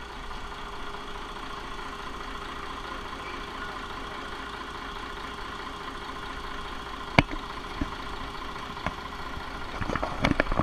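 Boat's inboard marine diesel engine idling steadily, heard through the open engine hatch. A sharp knock comes about seven seconds in and a few more knocks near the end.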